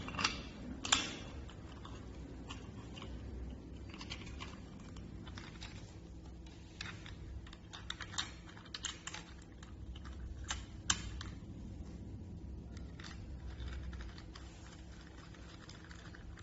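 Scattered light clicks and taps of small lock parts being handled while the lock cylinder is fitted, coming in irregular bunches over a low steady hum.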